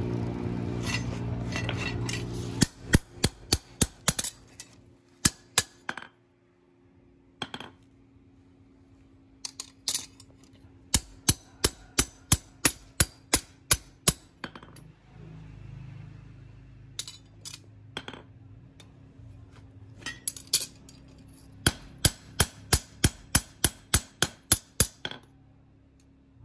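Hand hammer striking a knife blade forged from an aircraft bolt on a small round steel anvil: sharp clinking blows, some single and some in quick runs of about four a second, with pauses between. A low running noise fades out about three seconds in.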